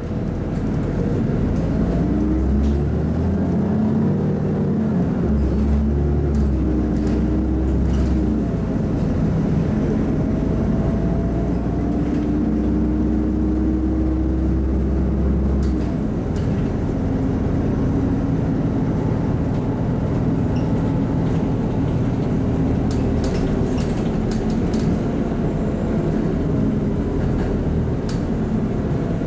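Inside a LiAZ-5292.65 city bus under way: the diesel engine and drivetrain run with road noise, the engine pitch rising and falling in the first several seconds, then holding a steady note before easing off about halfway through.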